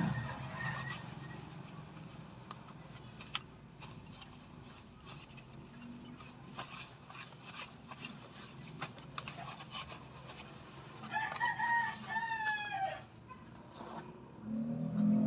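A rooster crows once, about two seconds long with a falling end, near the end. Under it are a low steady hum and scattered light clicks.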